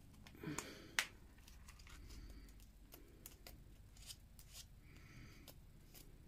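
Faint small clicks and rustles of hands handling small craft pieces, likely beads and elastic, with one sharper click about a second in.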